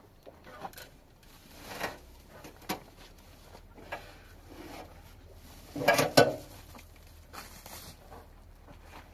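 Rustling and scraping from a sack and a shovel being handled on stony ground, with a short cluster of sharp knocks and clatter about six seconds in.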